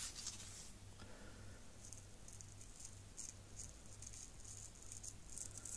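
Fine brown model-railway ballast being rubbed between fingers and sprinkled onto wet glue: a string of faint, short gritty rustles, over a low steady hum.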